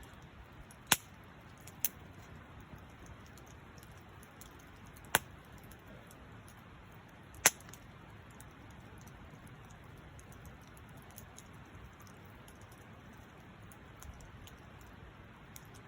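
Wood campfire crackling faintly over a steady hiss, with four sharp pops from the burning wood: two close together about a second in, then two more a few seconds apart.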